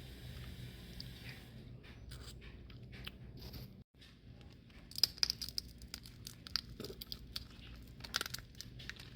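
Boiled crawfish shells being cracked and peeled by hand: a run of short, sharp crackles and tearing snaps. They are loudest about five seconds in and again near eight seconds.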